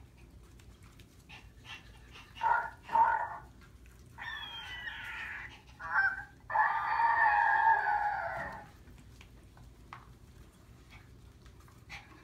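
Month-old Maltese puppies vocalizing: two short yips about two and a half seconds in, then longer whining cries from about four to eight and a half seconds.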